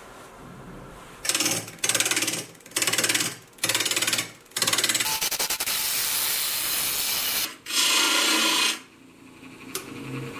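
Wood lathe spinning a log blank while a hand-held turning tool cuts into it, throwing off shavings: four short loud cuts, then one long cut of about three seconds and one more short one. The lathe's motor hums quietly before and after the cuts.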